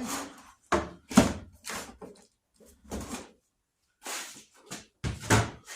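A box being moved aside by hand: a series of irregular knocks and thumps with short scrapes, the loudest about a second in and near the end.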